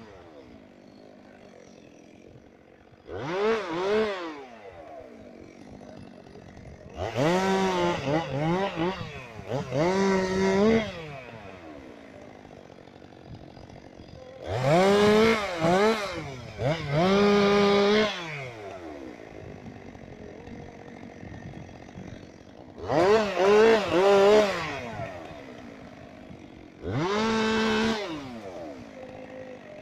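Two-stroke chainsaw idling, revved to full speed in short bursts of one to two seconds about seven times, dropping back to idle between them.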